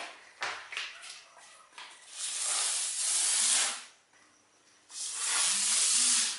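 Small bee fireworks shooting off with a loud high hissing rush, twice, each about one and a half seconds long, the second cut off suddenly; a few sharp pops in the first second.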